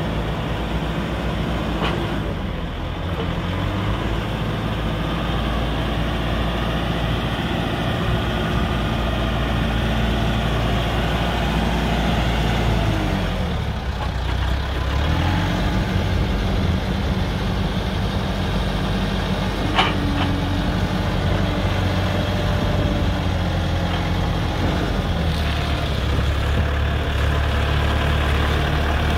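JCB 530-70 telehandler's diesel engine running steadily. About halfway through its revs drop and then pick up again, and about two-thirds of the way through there is one short high-pitched sound.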